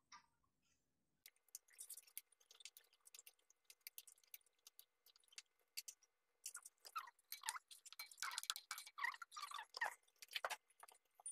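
Faint, irregular clicking and popping from a pan of thick kare-kare peanut sauce simmering on a gas burner, getting busier in the second half.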